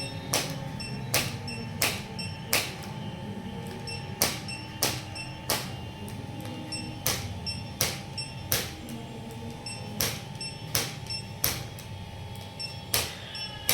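Sharp clicks or taps repeating in groups of three, each group a little over a second and a half apart, over a steady faint hum.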